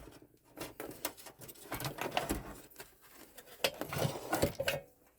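Hands handling computer cables and parts: irregular rustling and scraping with scattered light clicks and knocks, loudest about four seconds in.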